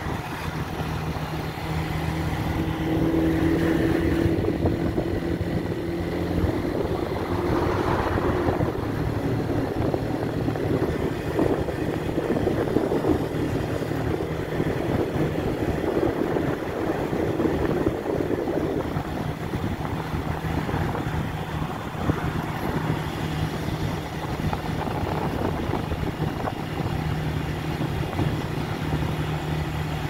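Motorcycle engine running at a steady cruise, heard close up from the rider's seat, over a haze of wind and road noise.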